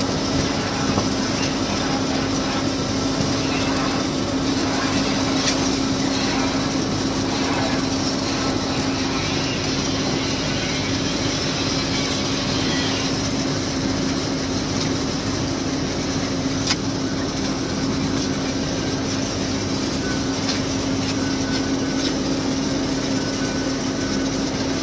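Stick welding on a pipeline joint during the stinger pass, with machinery running: a steady hum under a crackling hiss that eases about halfway through, with a few sharp clicks.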